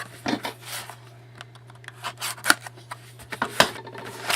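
Trading cards and their packaging being handled, with scattered clicks and rustles over a steady low hum.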